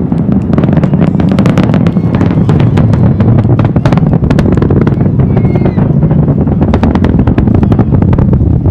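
Space Shuttle Atlantis climbing out, heard from about 10 km away: a deep, steady rumble shot through with rapid, irregular crackling, the typical crackle of the solid rocket boosters' exhaust.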